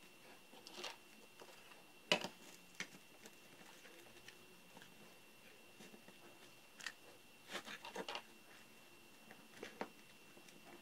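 Faint handling noises as a stack of NiCd battery cells is picked up, turned over and set down on a wooden workbench: light scattered knocks and clicks, the sharpest about two seconds in and a quick cluster near the middle. A faint steady high tone sits underneath.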